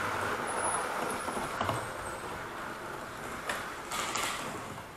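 Hornby OO-gauge model train running on the track, a steady rumble of wheels and motor that slowly fades, with a few sharp clicks along the way.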